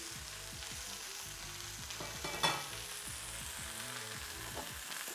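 Artichoke hearts frying in olive oil in a pan, a steady sizzle. A short clink comes about two and a half seconds in.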